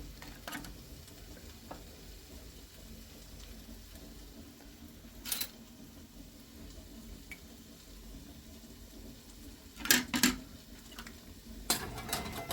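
Food frying in a pan with a steady sizzle, and a few sharp clinks of pots and utensils: one about half a second in, one around the middle, two close together near the end and a flurry just after.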